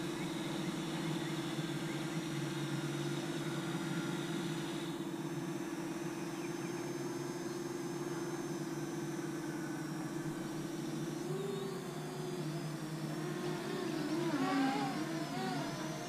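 Parrot Anafi quadcopter's propellers humming in flight, a steady tone that begins wavering up and down in pitch about eleven seconds in as the drone, set to sport mode, pitches about.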